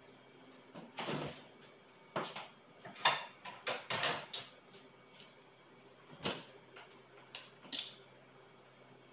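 Scattered knocks and clinks of kitchen things being handled: a soft thud about a second in, a quick run of sharper knocks and clinks a few seconds in, then a couple of lighter taps.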